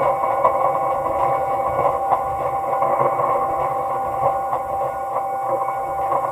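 Computer-generated ambient soundscape: a steady drone of several held tones over a dense, noisy texture with faint irregular clicks.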